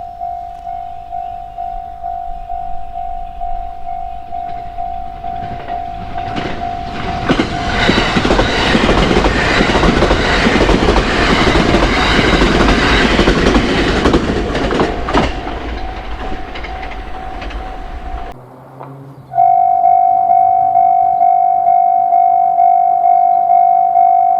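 Japanese level-crossing warning bell ringing its steady repeating "kan-kan" ding, while a train passes over the crossing for about ten seconds with a rumble and wheel clatter over the rail joints. After an abrupt cut a second crossing bell rings, louder and brighter, at about two dings a second.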